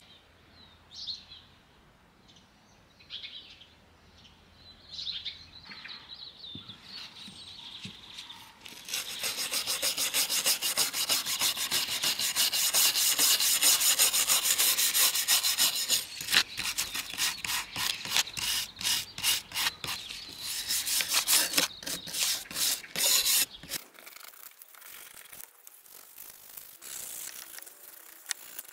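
Wire brush scrubbing a steel chair hinge, working off paint that has been softened with stripper. Fast, steady back-and-forth scrubbing starts about nine seconds in, breaks into separate strokes after about sixteen seconds, and fades out near the end.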